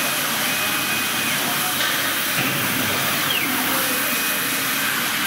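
CO2 fabric laser-cutting machine running: a steady rushing hiss of air and fans, with brief high-pitched whines, each about a second long, as the laser head moves across the fabric.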